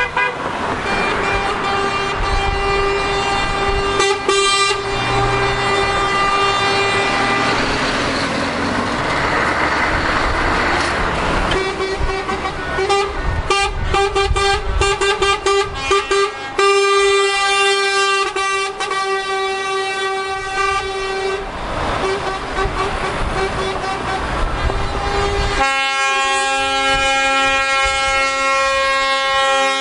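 Lorries in a passing convoy sounding their air horns: long held blasts and bursts of quick repeated toots, over the engine and tyre noise of the passing trucks. Near the end a louder multi-note chord horn starts up.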